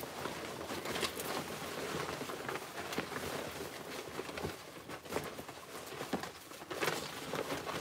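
Hands rummaging through paper slips inside a fabric storage basket: irregular rustling and crinkling with small clicks.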